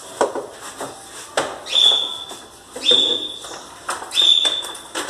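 A dog whining for its food in short, high-pitched cries, about one a second, with short knocks and clatters in between.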